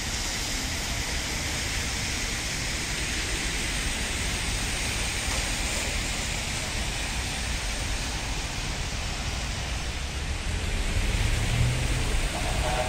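Steady hiss of street traffic on a wet road: tyres swishing on wet asphalt under a low rumble. It gets a little louder near the end as vehicles draw closer.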